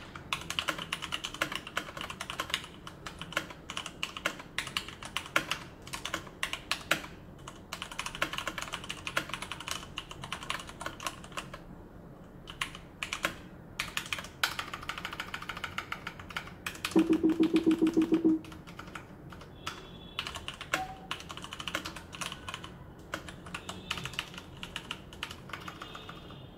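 Fast typing on a Leopold FC660M mechanical keyboard with Cherry MX Brown switches: a steady stream of key clicks and clacks, with a louder burst of rapid repeated strokes about two-thirds of the way through.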